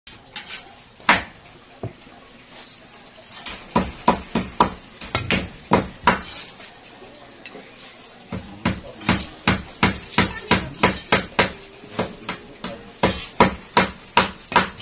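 Repeated hammer blows, scattered at first, then a steady run of about three strikes a second from about eight seconds in.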